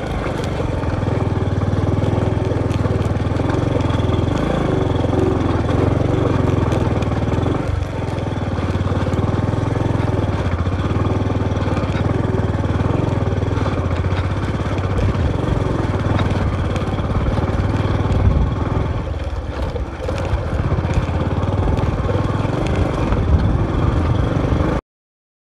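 Motorcycle engine running steadily as the bike is ridden over a rough, rocky dirt track. The sound cuts off suddenly near the end.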